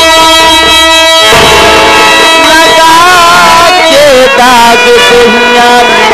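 Live stage-show music: a pulsing, evenly repeated chord for about the first second, then a wavering, bending melody line.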